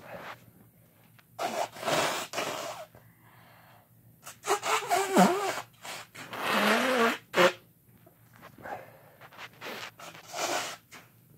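Sneezing fit: breathy gasps and voiced, wavering "ah" sounds from a person's nose and mouth, with a short sharp burst about seven seconds in.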